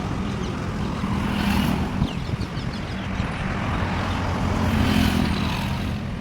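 An engine running steadily, a low rumble with outdoor background noise.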